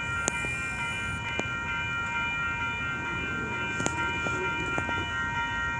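Amtrak passenger train approaching, with a steady chord of several high tones held unbroken over a low rumble and a few sharp clicks.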